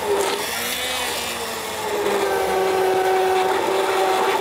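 Handheld immersion blender motor running with its blade down in a pot of thick cooked squash soup, pureeing it. A steady motor whine whose pitch wavers over the first two seconds as it works through the soup, then holds steady.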